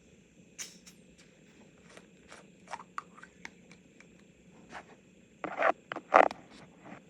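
Drinking Coke: a string of small clicks and short swallowing or gulping sounds, with two louder gulps near the end.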